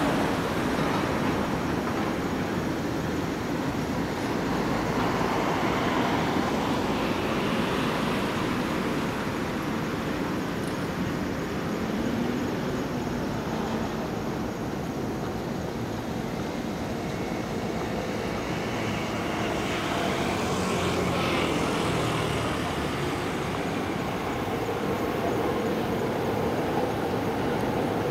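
E231 series electric commuter train running past on the Chuo-Sobu local line, a steady rumble of wheels on rails mixed with city traffic noise.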